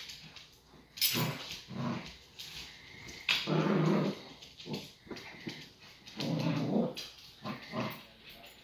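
Dogs growling in play while tugging a toy, in several bursts of about a second each.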